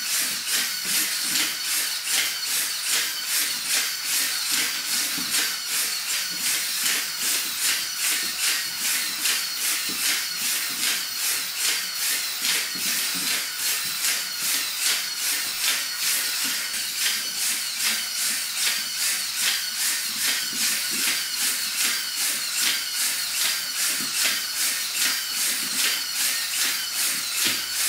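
Hobby servos of a 3D-printed humanoid robot working as it walks in short, flat-footed steps: a hissy buzz pulsing evenly about two to three times a second.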